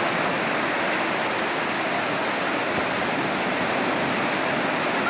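Ocean surf washing and breaking in the shallows: a steady, unbroken rush of noise.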